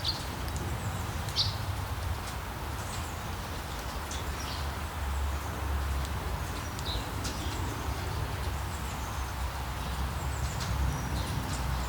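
Outdoor ambience: scattered short, high bird chirps every second or so over a steady low rumble and hiss.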